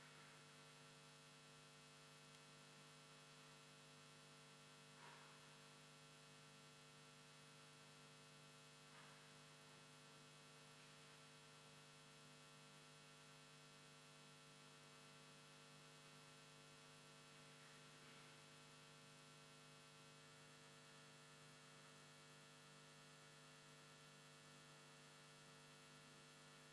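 Near silence: a faint steady hum, with a few faint brief sounds here and there.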